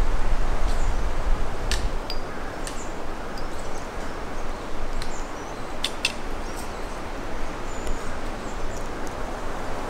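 Outdoor forest ambience: a steady rushing hiss, with wind rumbling on the microphone for the first two seconds. A few sharp clicks and some faint, short, high chirps sound over it.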